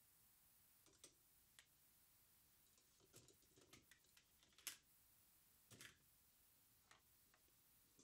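Near silence broken by a handful of faint, short taps and clicks at irregular intervals, the loudest a little before the five-second mark, from hands handling tape and parts on a workbench.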